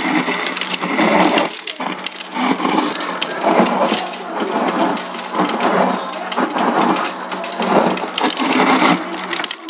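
Refrigerator door ice dispenser running: a steady motor hum under a continuous rattling clatter of crushed ice pouring into a plastic cup, cutting off suddenly near the end.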